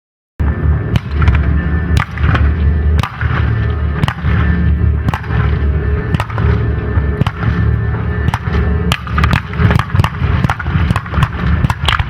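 Music starts suddenly about half a second in, with fireworks going off over it: many sharp, irregular bangs and crackles.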